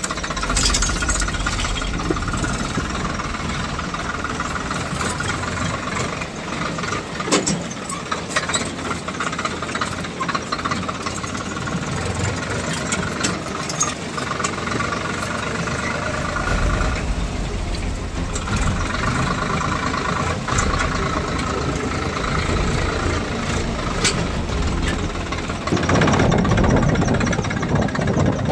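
Swaraj 742 XT tractor's three-cylinder diesel engine running steadily under load while pulling a tine cultivator, with scattered clanks and rattles. The engine grows louder and heavier near the end.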